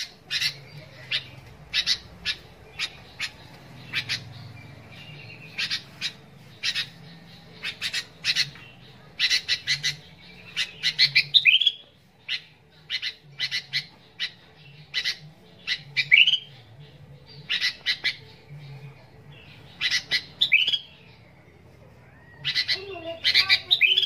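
Caged sooty-headed bulbul (kutilang) singing busily: a rapid string of short, sharp chirps and calls with a few quick rising whistled notes. The song breaks off briefly about halfway through and again near the end.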